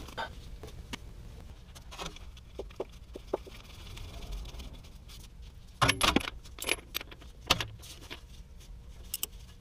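Metal hand tools clinking and rattling: a socket wrench on a long extension handled at the transmission fill plug after refilling, with a loud cluster of clinks about six seconds in and a few more near the end.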